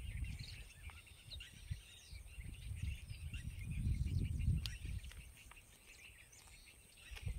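Many birds chirping and calling in quick, overlapping notes, over an uneven low rumble that swells about halfway through and then eases off.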